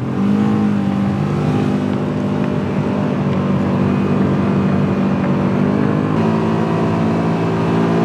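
Polaris General side-by-side's engine running steadily as the machine drives on snow tracks, heard from inside the cab; the engine note steps up slightly about six seconds in.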